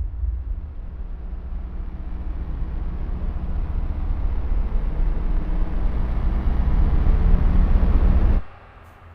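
A low, noisy rumble that swells steadily louder and brighter for about eight seconds, then cuts off abruptly.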